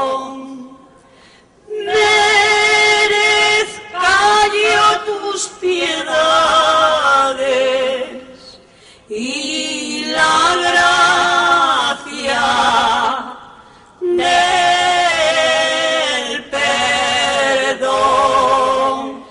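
A choir singing a slow Spanish devotional hymn without instruments. It sings in long held phrases with wavering notes, broken by short pauses.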